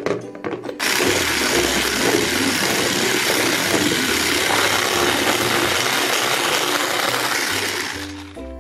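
Electric hand blender with a whisk attachment running at speed, beating eggs and sugar in a plastic bowl. It starts about a second in, runs steadily and winds down near the end.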